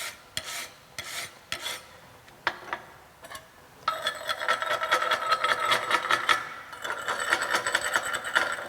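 Steel wire brush scrubbing a freshly welded bead to clear slag residue: a few separate strokes, a short pause, then about four seconds in fast, continuous brushing with a metallic ring from the plate.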